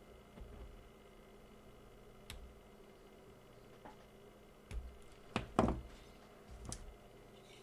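Scattered light knocks and taps of tools and small parts being handled on a workbench, about half a dozen separate hits with the loudest pair about five and a half seconds in.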